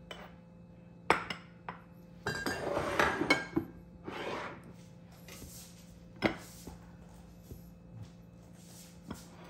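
Dishes and bowls clinking and knocking as they are set down. There are scattered knocks, a busy run of clinks from about two to three and a half seconds in, and one sharp knock a little past the middle.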